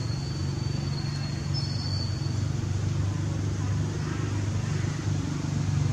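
A motor engine running steadily with a low, even hum, with a thin high-pitched tone over it for the first two seconds.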